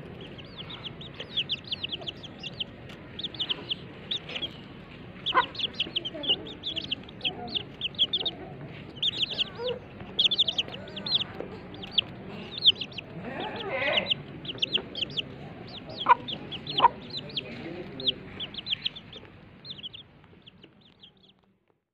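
A flock of baby chicks peeping, many short high chirps in quick succession, with a mother hen clucking a few times among them. The peeping dies away near the end.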